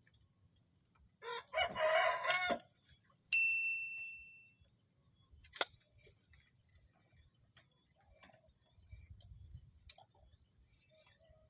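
A rooster crows once, about a second in, followed by a single sharp ringing ping that fades out over about a second.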